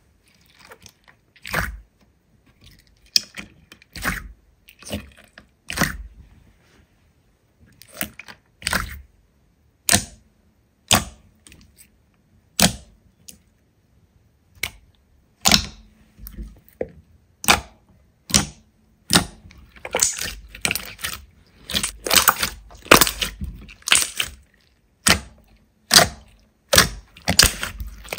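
Slime being played with by hand, making sharp pops and clicks at irregular gaps of about a second. They come closer together and louder about two thirds of the way in.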